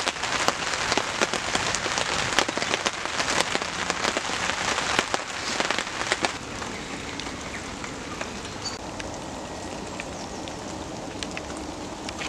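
Rain pattering on a tarpaulin shelter roof, a dense hiss full of sharp drop hits. About six seconds in it drops to a softer, steady rain.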